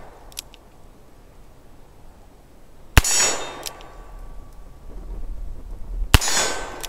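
Two shots from a Ruger Security Six .357 Magnum revolver, about three seconds apart, the second near the end. Shortly after each comes a metallic clang of the bullet striking a steel target, which rings on briefly with a thin tone.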